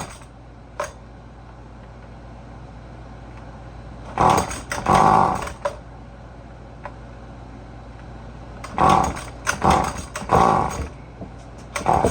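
Recoil starter of a Husqvarna 128LD string trimmer's small two-stroke engine being pulled, in two groups of short rope pulls about four and nine seconds in, without the engine catching. The owner takes this for a flooded engine.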